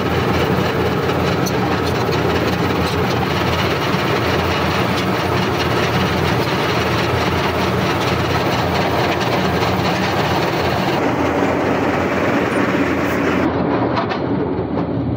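Borewell drilling rig running: a loud, steady mechanical clatter and rumble. The highest part of the sound thins out near the end.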